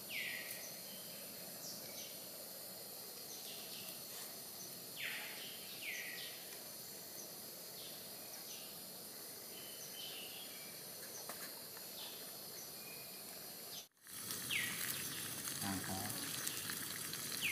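Forest ambience: a steady high insect drone, with short falling bird whistles repeated every second or two.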